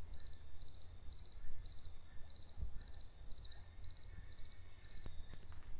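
A cricket chirping steadily, about two chirps a second, each chirp a short run of quick pulses, over a low rumble.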